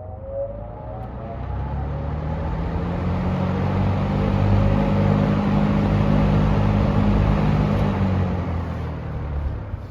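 1974 Champion Model H-20L-3 20-inch box fan starting up: the motor hum and the rush of air from the blades build over about four seconds to full speed, run steadily, then ease off near the end.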